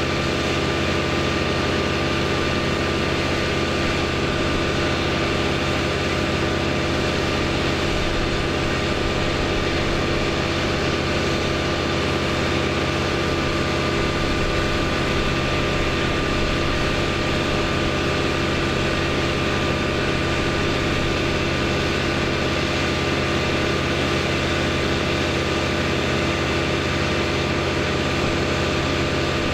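An engine running steadily at one constant speed, with a droning hum and no revving or change in pitch.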